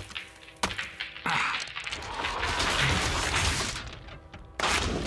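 Cartoon sound effects of a hardened foam crust being broken off a toy-like locomotive: three sharp taps of a metal scraper, then a long cracking, crumbling rush as the shell breaks apart, and another crash near the end.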